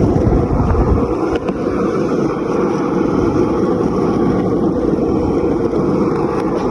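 Wind buffeting a handheld phone's microphone while riding an electric scooter at full throttle: a steady, dense rush of wind and road noise.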